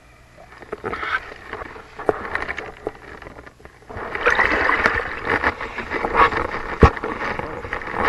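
Water splashing and sloshing as a hooked lake trout is brought to the surface beside the boat and landed, getting much louder about four seconds in, with a sharp knock near the end.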